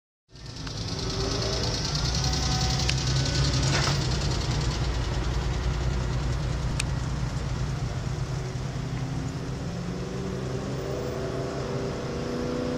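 A motor vehicle's engine running steadily with a low rumble, amid street noise.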